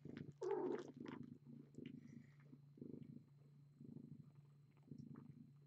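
Mother cat purring steadily as her kittens nurse, the purr swelling and easing about once a second with her breathing. A brief louder sound comes about half a second in.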